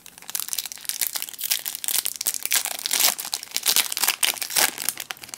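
Foil Yu-Gi-Oh! Duelist Pack booster wrapper being torn open and crinkled by hand: a dense, loud run of sharp crackles.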